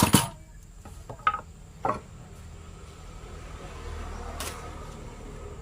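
A few sharp knocks, the loudest right at the start and two more in the first two seconds, then a low steady rumble with one faint click.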